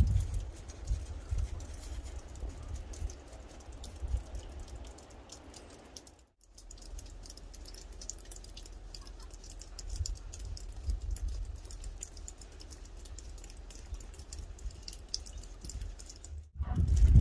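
Light, rapid crunching of footsteps on snow, small scattered clicks over a low rumble on the microphone.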